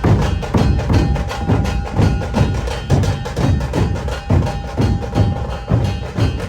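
Music with a steady percussion beat, about two strong drum hits a second.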